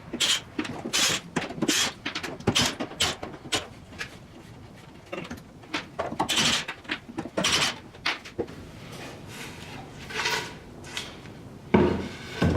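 Irregular knocks, scrapes and rustles of crated packages being handled and opened by hand, with a louder thump near the end.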